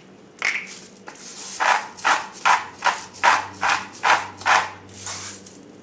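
A hand-twisted grinder grinding coarse pink Himalayan salt in about ten short crunching twists, two to three a second.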